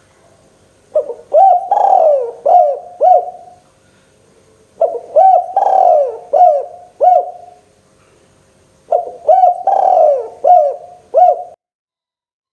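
Spotted dove (local tekukur) cooing in three repeated phrases about four seconds apart. Each phrase has about five coos, with a longer note falling in pitch near its middle. The calling cuts off suddenly near the end.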